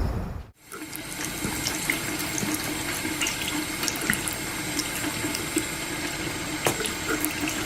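Water running steadily, with small splashes and drips scattered through it.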